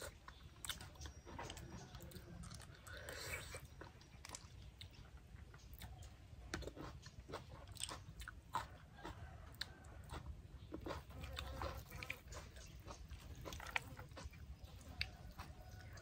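Close-up chewing and crunching of spicy papaya salad with blood cockles and raw vegetables, in many short irregular clicks, with a steady low rumble underneath.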